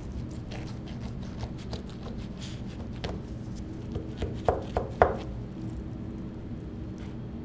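Food-stall kitchen work: scattered light clicks, then a quick run of sharp knocks about halfway through, over a steady low hum.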